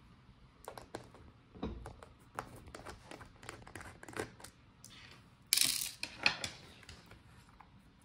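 Small plastic clicks and taps as a Lenovo ThinkPad E14 Gen 5's battery pack is worked free of its bay by hand and lifted out, with one louder, brief scrape a little past halfway.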